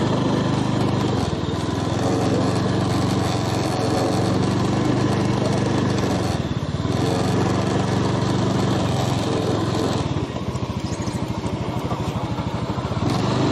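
Small motorbike engine running at low road speed, easing off about ten seconds in, then picking up again near the end.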